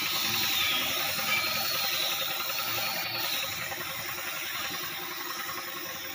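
Compressed-air spray gun with a cup hissing steadily as it sprays furniture polish.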